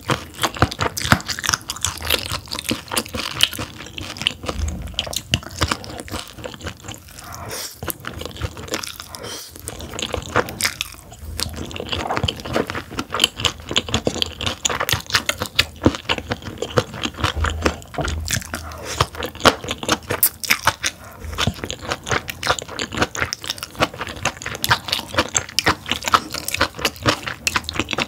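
Close-miked chewing of steamed yellow stingray: a dense, continuous run of wet crunches and mouth clicks as the wing's cartilage is bitten and chewed, with a few short lulls.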